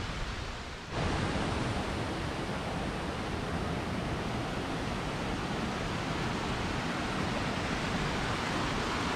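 Steady rush of river water running over limestone ledges and small cascades. It gets louder about a second in.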